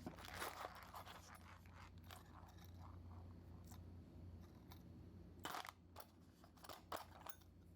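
Faint handling of small parts from the disassembled microphone: light rustling and scraping, a short crackle about five and a half seconds in, and a couple of sharp clicks near the end, over a steady low hum.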